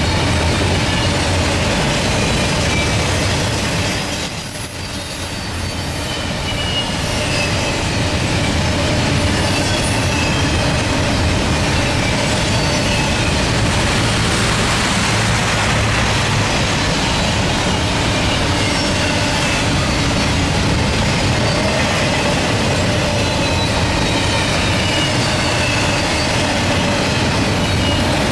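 Double-stack intermodal well cars rolling past: a steady rumble of steel wheels on rail, with faint high wheel squeals gliding in pitch. The sound dips briefly about four seconds in.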